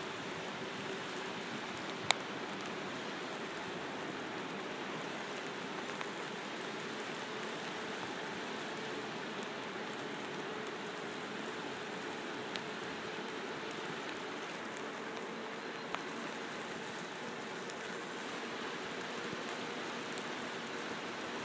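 Steady hiss of bicycle tyres rolling on a wet road, with a few sharp clicks, the loudest about two seconds in.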